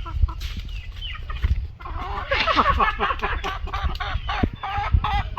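A flock of chickens clucking and squawking, many birds calling over each other and growing louder and denser about two seconds in, as they squabble over food.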